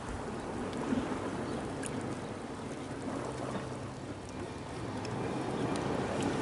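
Sea water washing and lapping around shoreline rocks: a steady noisy wash, with a few faint clicks.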